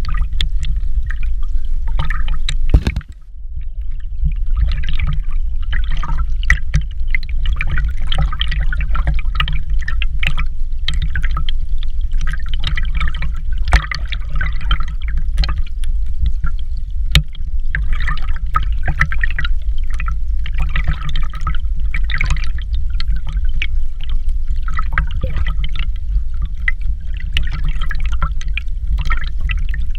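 Running water pouring and splashing over a steady low rumble. The sound briefly drops out about three seconds in.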